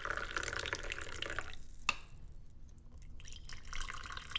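Coffee poured from a French press into a ceramic mug, the liquid stream splashing. There is a sharp click just before two seconds in, the pouring drops away for about a second, then resumes.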